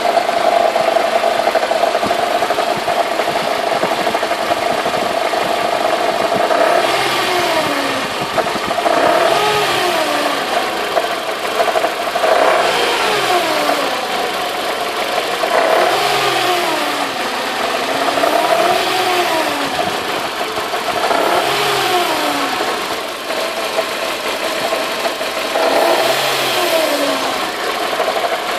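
Mercedes-Benz W202 C180's four-cylinder petrol engine running, at first steady, then from several seconds in revved up and let fall back again and again, about every three seconds. This is the noise the owner presents as timing chain noise.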